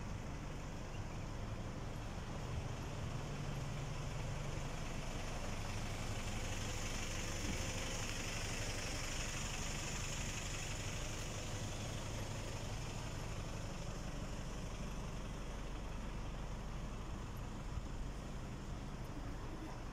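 Street traffic: a vehicle engine running steadily close by, with a low hum, and a hiss that swells and fades about halfway through.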